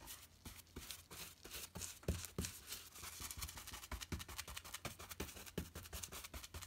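Paintbrush scrubbing primer onto a rough, heavily textured drywall ceiling patch in quick, irregular back-and-forth strokes, which come faster after about three seconds.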